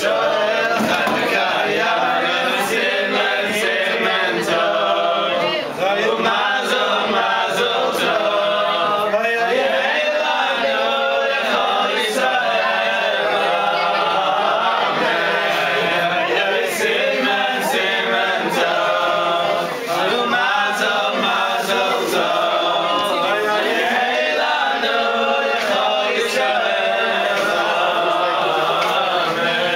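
A group of men singing a song together in chorus, steady and unbroken throughout.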